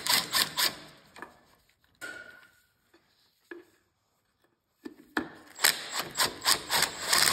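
Socket tool on a long extension running the valve-cover bolts of a Briggs & Stratton V-twin mower engine back in: quick irregular clicking in the first second, a quiet stretch with a few ticks, then rapid clicking again from about five seconds in.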